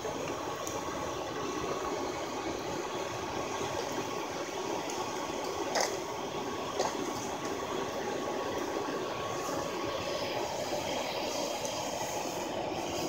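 Hairdryer blowing air through a pipe into a charcoal bucket forge: a steady rushing with a faint steady whine. Two sharp metallic knocks come about a second apart near the middle.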